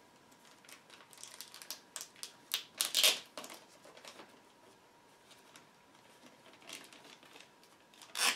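Paper and packaging crinkling and rustling as documents are handled. The short crackles are busiest in the first few seconds, and there is a louder crackle near the end.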